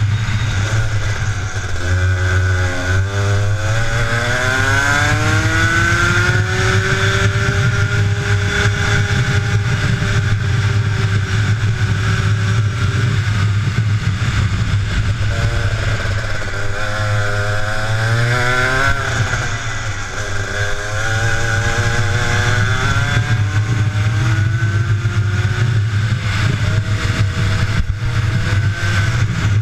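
Onboard sound of a two-stroke racing kart engine at full race pace. Its pitch climbs as the kart accelerates out of each corner, holds high on the straights, and drops sharply when the driver lifts for the next corner, several times over, above a steady low rumble.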